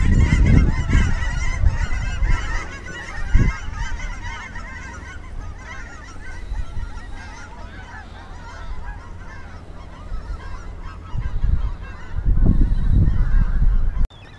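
A large flock of geese honking overhead, many calls overlapping, loudest at first and growing fainter over the next several seconds as the flock passes. Low rumbles on the microphone come at the start and again near the end, and the sound cuts off suddenly just before the end.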